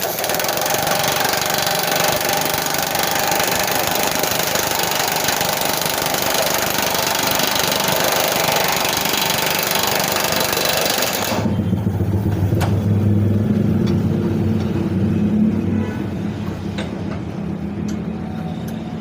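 Impact wrench running without a break for about eleven seconds as it tightens a bolt, a loud, even hissing rattle that cuts off suddenly. After it stops, a lower steady engine-like drone with a few sharp clicks is left.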